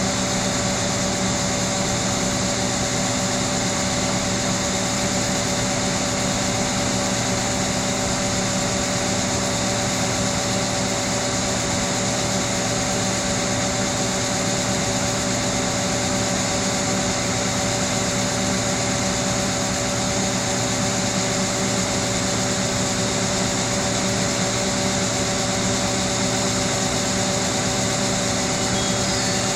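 John Deere combine harvester running steadily while harvesting corn: a constant machine drone with several fixed hum tones under an even hiss.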